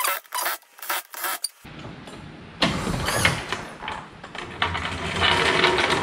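Cordless ratchet on a lug nut: a few sharp clicks, then about three seconds of rattling, whirring mechanical noise as the tool runs.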